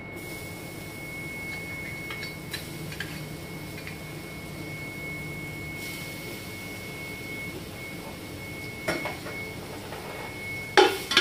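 A metal spoon knocking against a cooking pot, a few sharp clinks in quick succession near the end, over a steady faint background with a thin high whine.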